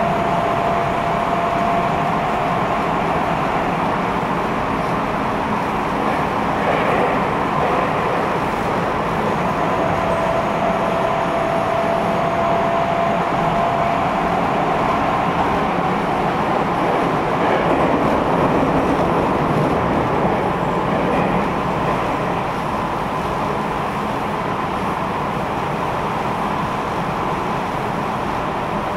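Tokyo Metro 10000 series subway train running at steady speed, heard from inside the car: an even rumble of wheels on rail, with a faint steady tone that drops away and returns about ten seconds in.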